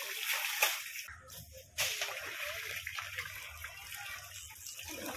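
Water gushing and splashing. The sound drops away briefly about a second in, then comes back suddenly.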